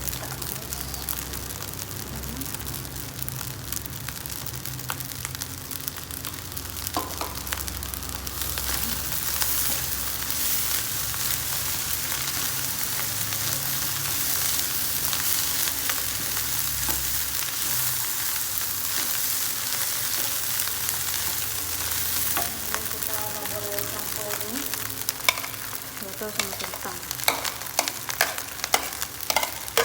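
Fried rice sizzling in a hot pan as it sautés, the hiss getting louder for a stretch in the middle. Near the end a spatula knocks and scrapes against the pan several times as the rice is stirred.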